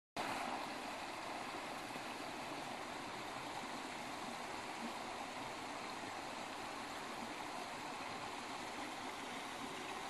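Steady rushing of a small creek flowing over rocks.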